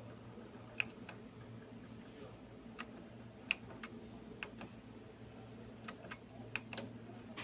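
Scattered sharp clicks and taps, about a dozen at uneven intervals, as small parts and tools are handled during work on a laser printer, over a steady low hum.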